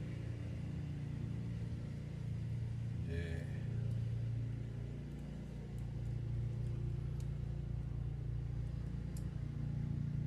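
Steady low mechanical hum, like a motor running in the background, with a faint click near the end.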